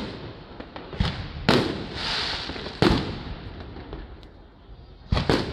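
Aerial fireworks bursting overhead: about five sharp bangs, two of them close together near the end, with a hissing stretch around two seconds in.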